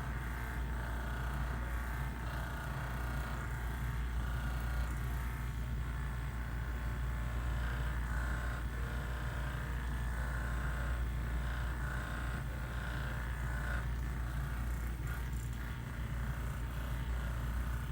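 Steady low hum under a constant faint hiss, with no distinct events.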